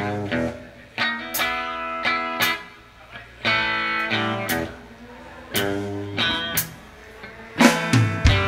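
Live band music: an electric guitar plays separate ringing phrases with short gaps between them, and drums come in harder near the end.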